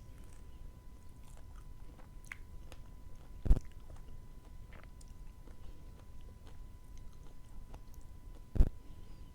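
Close-miked chewing of sweets, with small wet clicks throughout and two heavy thumps about five seconds apart.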